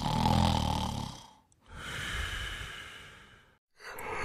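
A person snoring: a loud rasping snore with a low buzz, then a long breathy exhale, and near the end a sigh begins as the sleeper wakes.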